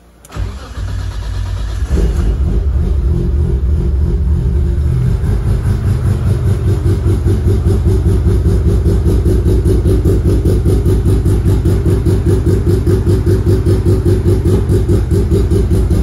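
Nissan Skyline R33's RB25 straight-six engine cranking for a second or two, catching, and settling into a loud, steady idle with an even pulse.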